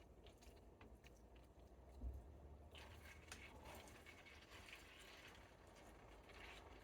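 Near silence: a faint low hum, with one soft thump about two seconds in.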